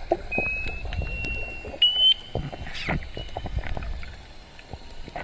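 Recording played as the 'Arctic ping': a low rumble with scattered knocks and clicks, and three short high steady tones in the first two seconds, the last rising slightly in pitch.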